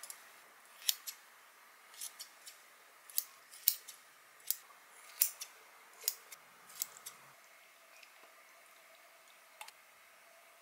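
Stainless-steel kitchen shears snipping through raw chicken thigh: about ten sharp, crisp snips, roughly one a second, stopping about seven seconds in.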